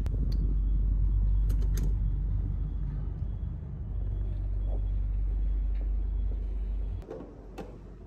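A loud, steady low rumble with a few sharp clicks in the first two seconds; the rumble cuts off suddenly about seven seconds in.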